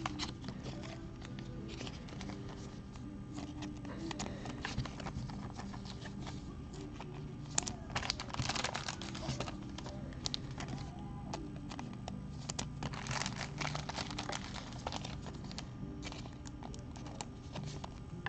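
Baseball trading cards and plastic card sleeves being handled and sorted: a run of soft clicks, shuffles and plastic crinkling, with two louder stretches of crinkling partway through. Faint background music runs underneath.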